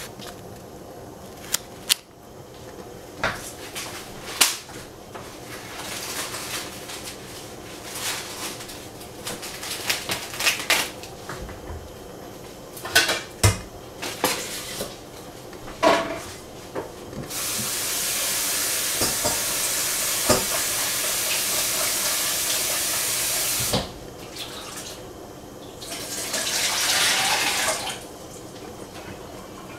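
Kitchen sounds: scattered clinks and knocks of dishes and utensils, then a steady rush of water from a running tap for about six seconds, and a shorter rush near the end.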